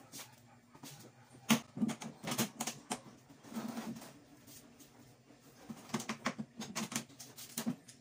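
Clunks and knocks from a washing machine's plastic cabinet being tilted and shifted on a concrete floor, in two clusters of sharp strokes with a quieter stretch between.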